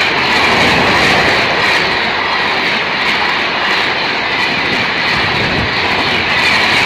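Gatimaan Express passenger coaches rushing past close by: a loud, steady rush of steel wheels on rail and air.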